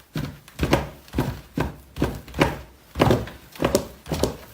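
A steady run of dull thuds or knocks, about two a second.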